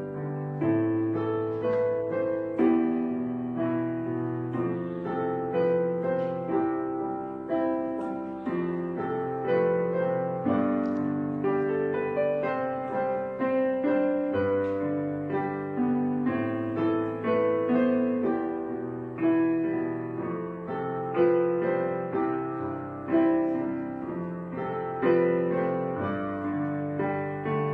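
Background piano music: chords and melody notes struck at an even pace and left to ring.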